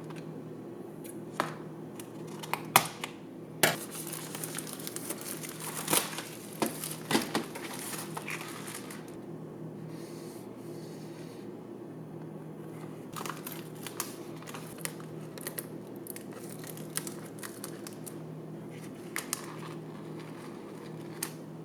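Plastic packaging of a Nissin Chow Mein noodle tray crinkled and torn open by hand, with sharp clicks and taps. It is busiest from about three to nine seconds in, with sparser clicks later, over a steady low hum.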